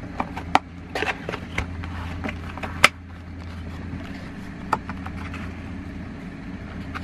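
Cardboard box and its paper inner flaps being opened by hand: scattered short rustles and clicks, the sharpest snap nearly three seconds in, over a steady low hum.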